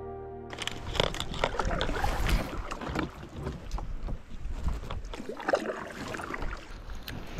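Water splashing and sloshing around a kayak, with irregular knocks against the hull and some wind on the microphone.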